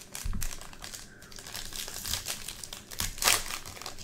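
Foil trading-card pack wrapper crinkling as it is handled and opened, with irregular crackles and a louder crinkle about three seconds in.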